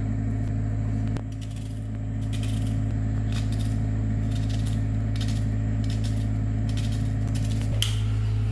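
Light clinks, scrapes and rustles of chicken pieces and utensils being handled while the chicken is separated into pots, over a steady low hum.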